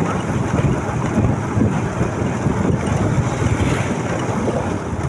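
Wind buffeting the microphone of a moving motorcycle: a steady, low rush of noise.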